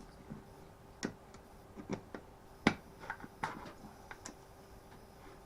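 Irregular small clicks and taps, about nine of them, from a screwdriver and small parts being handled as the ignition coil of a Stihl FS36 strimmer is unscrewed; the sharpest click comes about two and a half seconds in.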